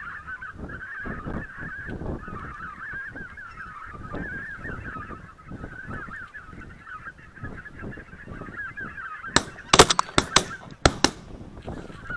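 A flock of greater white-fronted geese calling continuously overhead, a chorus of high yelping honks. About nine seconds in, a rapid string of shotgun shots from several guns breaks out over about two seconds.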